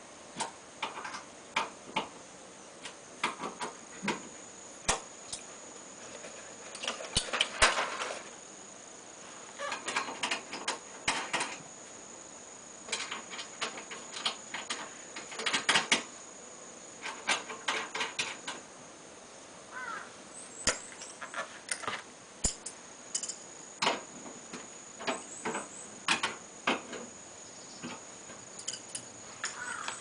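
Irregular clicks, taps and short bouts of metallic clatter from hand tools and parts being handled at an air conditioner's outdoor unit, over a faint steady high-pitched tone.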